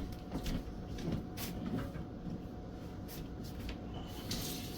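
Scattered light clicks and knocks of kitchen things being handled, over a faint steady hum.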